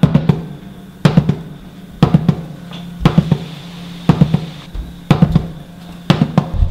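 Background music led by a drum kit playing a steady beat, a cluster of hits about once a second over a low sustained note.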